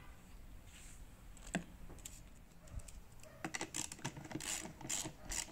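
Plastic airbox housing of a BMW E46 being handled and its lid screwed back down with a Phillips screwdriver: a sharp click about a second and a half in, then from about three seconds in a quick run of light plastic clicks and scrapes.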